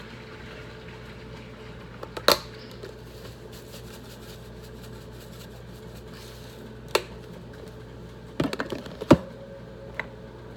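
Spice jars being handled: a handful of sharp plastic clicks and knocks from lids and shakers, the loudest a little over two seconds in and in a cluster near the end, over a steady low hum.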